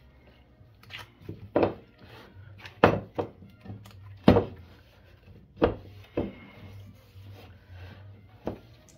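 Butter cookie dough being kneaded by gloved hands in a plastic mixing bowl: irregular dull thumps as the dough ball is pressed and knocked against the bowl, about seven in all, with rubbing between them.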